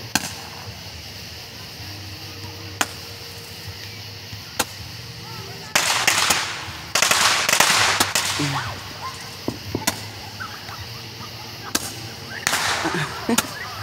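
Fireworks going off: scattered sharp pops and cracks, with loud hissing, crackling stretches from about six to eight and a half seconds in and again briefly near the end.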